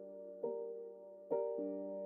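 Soft background music: slow keyboard notes, two struck and left to ring, over a held low tone.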